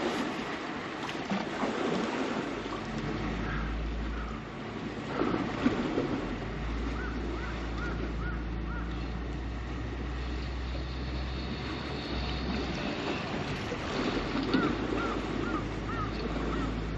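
Sea waves and wind on the microphone, under the steady low hum of a boat engine. Twice, a short run of small chirps repeats a few times a second.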